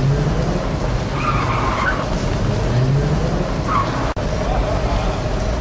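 City road traffic: a steady rumble of engines and tyres, with short high squeals about a second in and again near four seconds in, and a sudden split-second gap in the sound just after.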